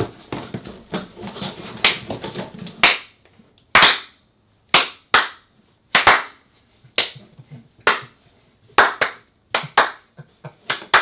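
Hands clapping: about three seconds of rustling, then a string of single sharp claps roughly a second apart, coming closer together near the end.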